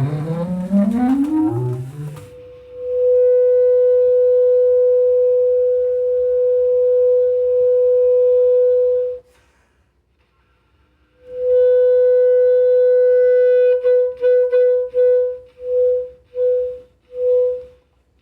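Experimental contemporary music. It opens with loud upward-gliding pitches, then holds one long steady tone, pauses, and takes the tone up again, breaking it into a run of short repeated notes near the end.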